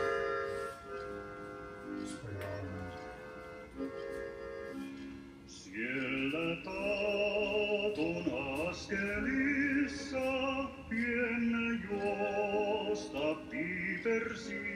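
Background music: a Finnish folk song with held accordion chords, then about six seconds in a male voice starts singing with a strong vibrato.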